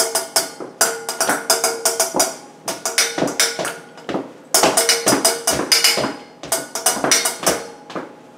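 A kitchen spoon drumming on a metal mixing bowl as a makeshift drum. Quick rhythmic strikes come in runs of about a second and a half with short pauses between, the bowl ringing faintly under the hits, and stop near the end.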